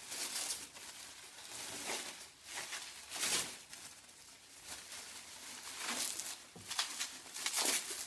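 Packaging rustling and crinkling in about five short bursts as parts are unwrapped by hand.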